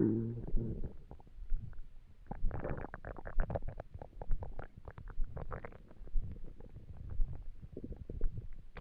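Empty human stomach rumbling from hunger. A low pitched growl opens it, followed by bursts of crackly, bubbly gurgling, over a low thump about once a second.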